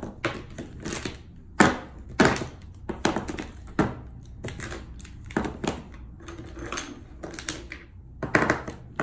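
Copic markers being handled and sorted, their plastic barrels clicking and knocking together in an irregular string of sharp clacks, about fifteen in all.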